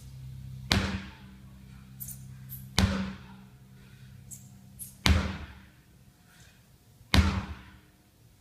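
Sledgehammer striking a tire four times, about two seconds apart, each a heavy thud that trails off briefly.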